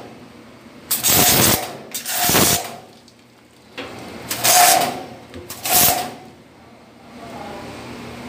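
High-pressure sprayer hissing in four short blasts, each carrying a steady tone, with quieter pauses between them. It is a pest-control spray driving insecticide into crevices, where the force of the pressure is meant to kill the cockroaches.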